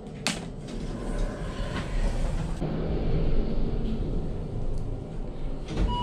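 Passenger lift travelling between floors: a low steady rumble that builds and then eases, with a sharp click just after the start and a thump near the end.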